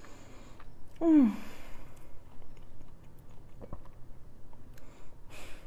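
A woman eating bread topped with cottage cheese and peach, chewing with her mouth closed. About a second in she gives a short falling 'mm' hum, and near the end there is a short breath.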